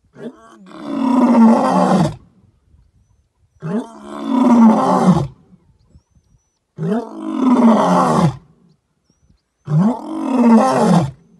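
Male lion roaring: four long roars about three seconds apart, each rising in pitch at the start and falling away at the end.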